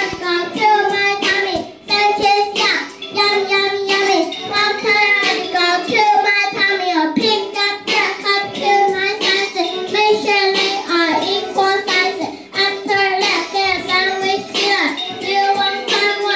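A young boy singing a hip-hop song over a backing music track.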